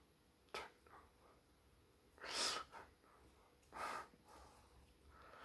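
A person's breath sounds: a small click, then two short, noisy breaths or sniffs, the louder one about two and a half seconds in.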